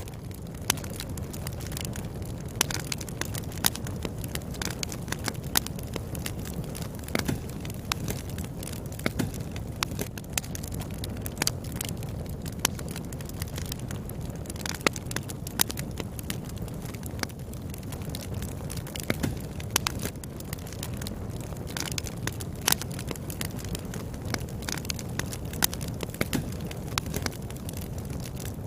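Wood fire burning, with a steady low rumble of the flames and irregular sharp crackles and pops from the burning firewood.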